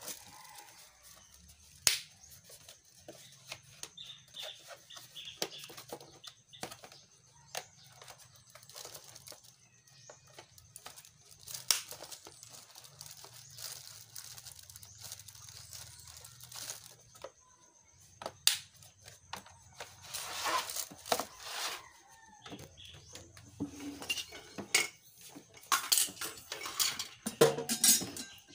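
Hard plastic clicking, knocking and rustling as a plastic welding face shield is handled and snapped together, with several sharp clicks and louder crinkling stretches in the second half.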